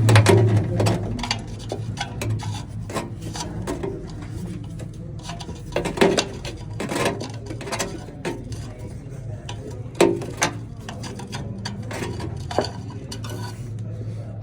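Hand tools scraping and clinking on the metal casing of an oxygen sensor being worked open. Sharp clinks come near the start, about six seconds in and about ten seconds in, over a steady low hum.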